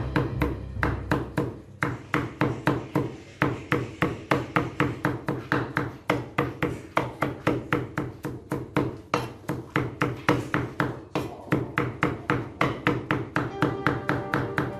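Knife chopping rapidly on a cutting board, about five strokes a second, over background music.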